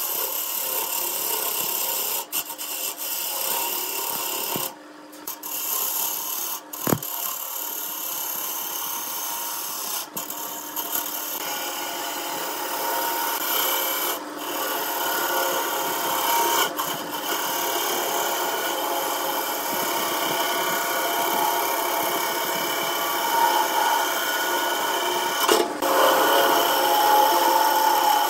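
A turning tool cutting into a large wood blank spinning on a wood lathe: a continuous rough scraping hiss as shavings peel off. It breaks off briefly about five seconds in, then goes on.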